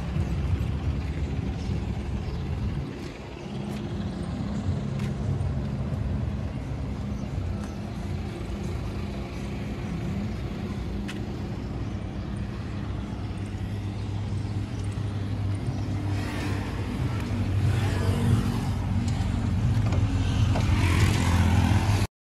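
Diesel truck engine idling with a steady low hum, growing louder over the last few seconds before cutting off suddenly.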